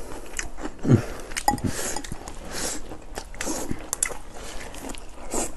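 Close-up eating sounds: two people chewing and biting mouthfuls of rice and fish-fragrant shredded pork, with scattered small clicks and crackles as chopsticks scrape and tap glass rice bowls.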